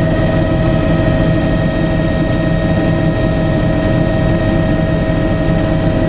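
Helicopter in flight heard from inside the cabin: a loud, steady engine and rotor noise with a high whine running through it.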